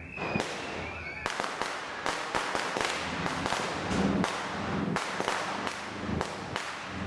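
Firecrackers going off in a quick, irregular run of sharp bangs and pops, one on top of the next, over a hiss.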